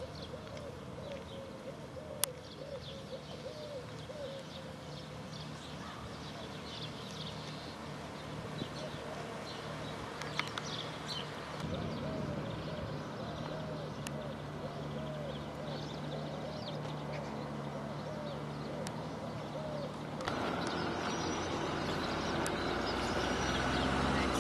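Birds chirping and calling, including runs of a short repeated lower call, over a steady low hum of road traffic. About 20 seconds in, louder traffic noise sets in.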